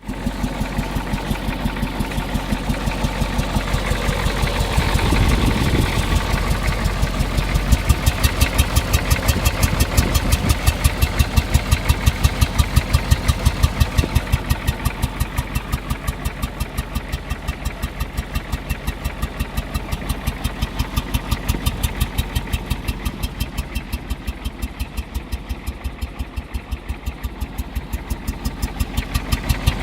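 Ford 6.9L IDI V8 diesel running with a strange, regular pulsing noise coming from the air cleaner, a few beats a second. It swells briefly about five seconds in.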